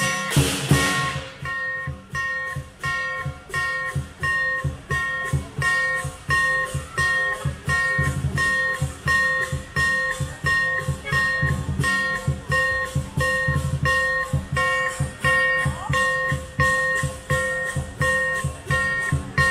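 Lion dance percussion: a large drum beating with ringing metal percussion struck in a steady rhythm about twice a second, busier and louder for about the first second.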